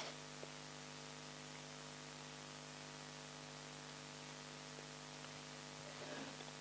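Faint steady electrical hum with hiss from the sound system, with a soft, faint sound near the end.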